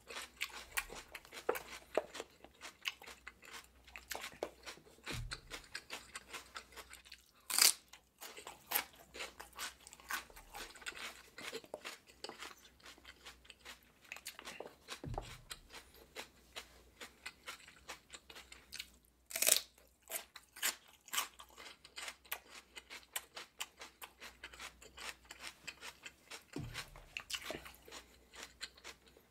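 Raw celery stalk being chewed close to the microphone: continuous crisp, crunchy chewing, with two much louder sharp crunching bites, about a quarter of the way in and about two thirds of the way in.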